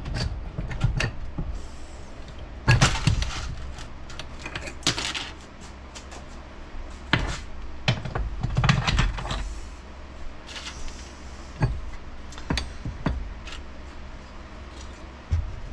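Internal metal parts of an NP241C transfer case being worked loose and lifted out as a unit: irregular metallic clicks, clinks and knocks, in clusters, the loudest about three seconds in and again around nine seconds.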